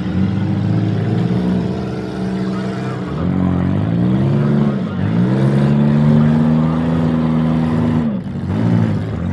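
Demolition derby cars' engines revving hard, their pitch dropping and climbing again several times as the drivers back off and accelerate.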